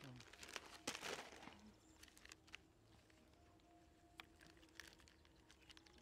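Plastic snack bag crinkling in a brief burst about a second in, followed by faint scattered clicks and crackles.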